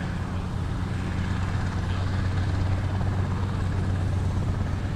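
B-52H bomber's eight TF33 turbofan jet engines passing overhead in a low, steady rumble that swells slightly over the seconds.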